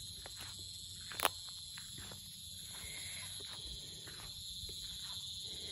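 Steady, high-pitched insect chorus, with faint footsteps through grass and one sharp click about a second in.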